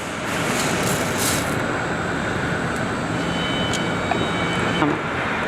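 Machinery running steadily: an even, dense mechanical rushing noise with a brief sharper hiss about a second in.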